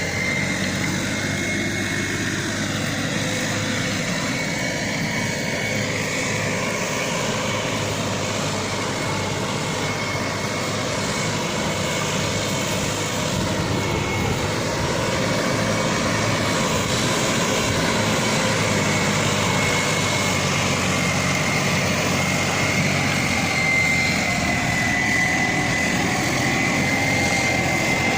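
Tümosan 6065 tractor's diesel engine running steadily under load while pulling a five-furrow plough, with a steady high whine over the engine drone.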